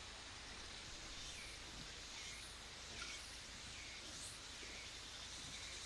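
Faint outdoor ambience with a small animal's short high chirp repeating roughly once a second.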